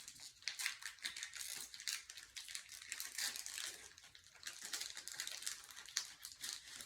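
Foil Pokémon booster pack wrapper crinkling and crackling in the hands as it is handled and worked open, an irregular run of sharp little crackles.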